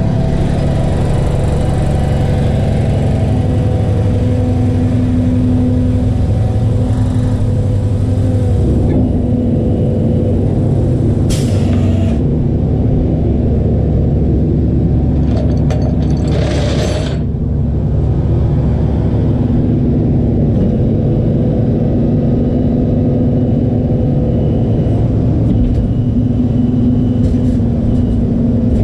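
Tow truck's engine running at a steady pitch with a constant whine while the truck loads a dead van. Two short bursts of hiss come midway.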